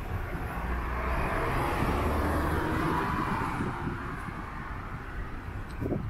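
A motor vehicle passing by on the street: a rumbling engine and road noise that swell up, peak after a couple of seconds and fade away.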